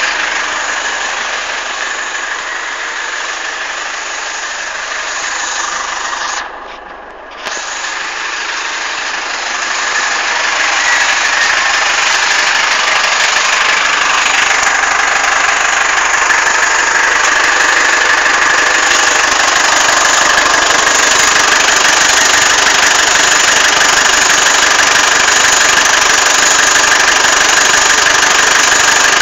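A 2012 Ford Everest's engine running, with a steady noise and a faint high tone over it: the annoying sound the owner is recording. The sound dips briefly about seven seconds in and grows louder from about eleven seconds on.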